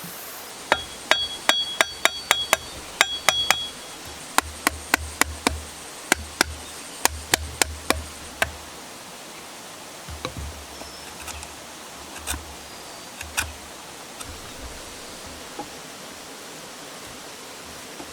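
A hammer tapping in quick runs of sharp strikes, about three or four a second, the first ones with a short metallic ring. The runs give way to a few scattered, lighter taps.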